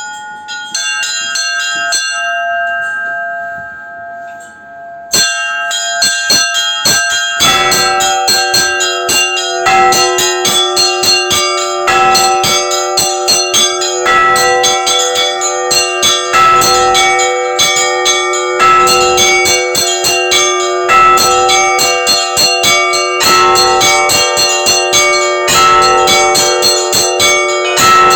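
Russian Orthodox church bells rung in the belfry, heard up close. First a few bells are struck singly and left ringing. About five seconds in, the small bells break into a fast, dense chiming, and from about seven seconds a large, deep bell joins, struck about every two seconds beneath it.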